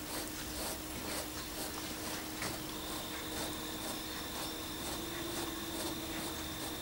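A cat licking fabric sofa upholstery: soft rasping tongue strokes on the cloth, about two a second. A faint steady hum runs underneath.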